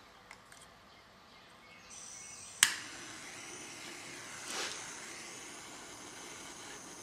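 Small handheld butane soldering torch: gas starts hissing, one sharp click of the piezo igniter lights it, and the flame then hisses steadily. It is being lit to heat a crimped wire terminal for soldering.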